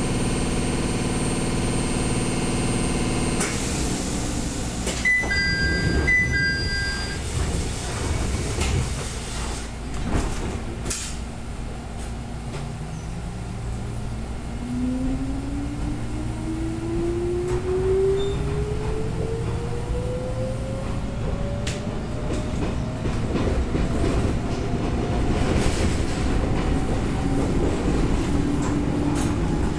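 Inside a Jomo Electric Railway 700-series electric train pulling away: a short two-tone beeping about five seconds in, then the traction motors whine, rising steadily in pitch as the train gathers speed, over the steady rumble of the running train.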